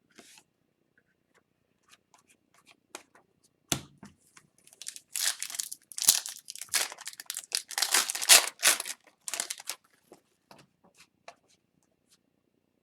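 Foil trading card pack being torn open and its wrapper crinkled: a sharp click about four seconds in, then several seconds of dense tearing and crinkling, with light card-handling ticks before and after.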